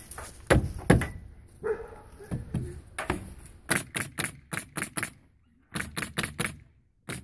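Two heavy knocks, then quick runs of sharp clicks at about four or five a second.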